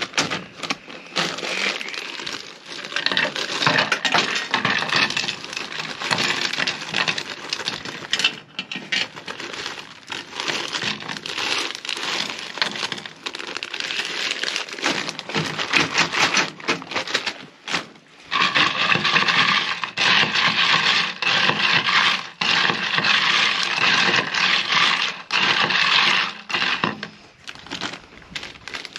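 Ice cubes clattering and cracking inside a plastic zip-top bag as it is handled and shaken, with the plastic crinkling; a dense, continuous run of clicks and cracks.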